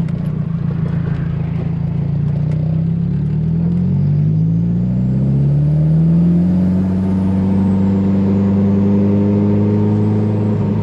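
Nissan 240SX S14's turbocharged SR20DET four-cylinder engine under way: the engine note holds steady, climbs in pitch, drops back once about five seconds in as if on a gear change, then climbs to a steadier, higher note.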